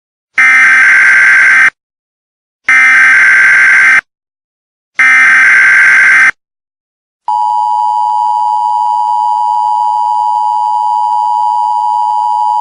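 Emergency Alert System SAME header: three bursts of warbling data tones, each just over a second long and about a second apart, then the steady two-tone EAS attention signal starting about seven seconds in. Together they mark the start of an emergency alert message.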